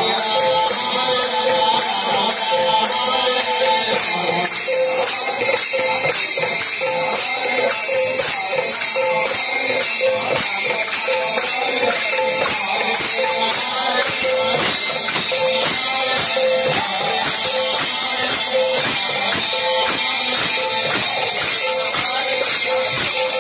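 Live devotional kirtan music with a steady, fast beat: jingling metal hand percussion and a drum keep time while a harmonium plays.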